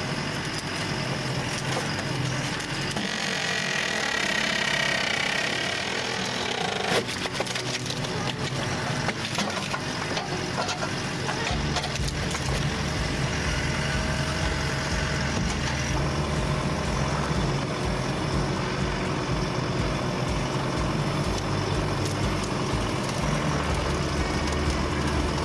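A firewood processor splitting logs: wood cracking and splintering as the pieces are forced apart, over the running machinery. A low engine rumble joins in about a third of the way through.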